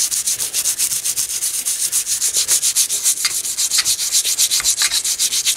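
Toothbrush bristles scrubbing hand cleaner over the dusty case of a vacuum tube voltmeter's power transformer: rapid, even back-and-forth strokes, several a second.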